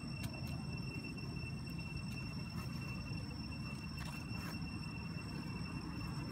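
Outdoor background: a steady low rumble with a constant thin high-pitched tone over it, and a few faint ticks and rustles. No monkey calls are heard.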